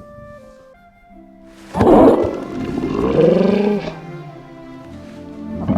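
Film sound design of a Night Fury dragon calling over soft orchestral score: a loud, rough cry about two seconds in, then a longer warbling call that rises and falls.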